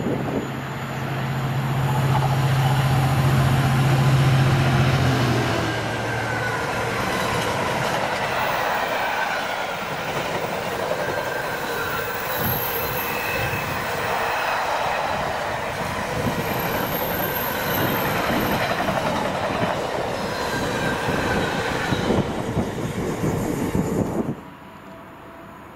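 A train passing at speed. A steady low drone is heard for the first few seconds, then a long run of wheels clattering over the rail joints with occasional high squeals, cutting off suddenly near the end.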